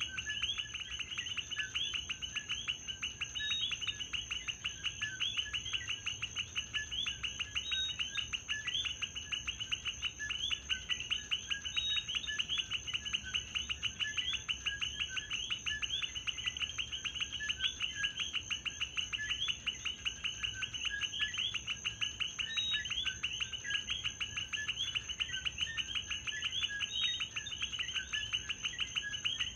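Chorus of coquí frogs: many short chirping calls overlapping in a dense, continuous pulsing, with a steady high tone above it.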